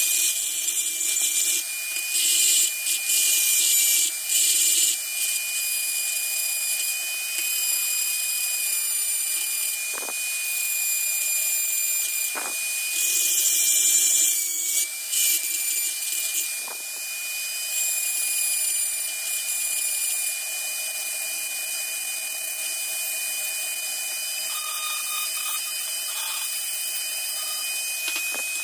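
Handheld rotary tool running at high speed with a steady high whine, its spinning bit grinding the steel of a pair of needle-nose pliers. The grinding rises in louder rasping stretches twice, a couple of seconds in and again around the middle, with a few light knocks of the pliers against the bit.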